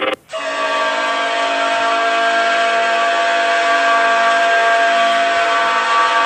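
Indian Railways locomotive air horn sounding one long, steady blast of several tones together, starting a moment in after a brief break.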